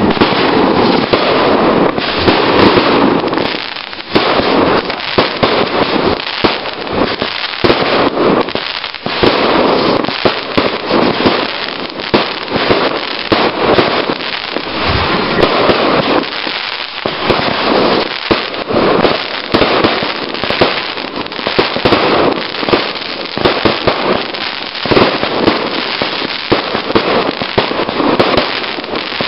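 Fireworks display: a continuous barrage of bangs and pops from shells launched and bursting in rapid succession, many every second.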